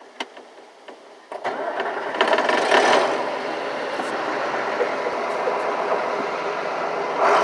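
A few clicks, then about a second and a half in the John Deere 6600 combine's diesel engine and machinery come in suddenly, swell, and settle into a steady loud run.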